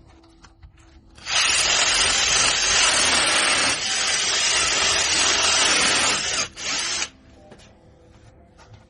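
Power drill drilling a hole into a wall, running steadily for about six seconds with a brief stop shortly before it finishes.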